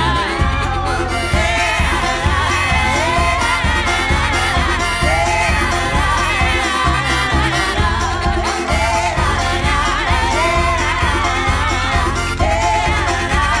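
Background song: a sung vocal over a steady bass beat.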